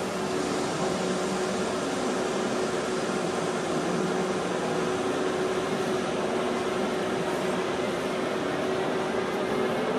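Czech Railways class 151 electric locomotive standing with its cooling blowers running: a steady whirring hum with one steady mid-pitched tone.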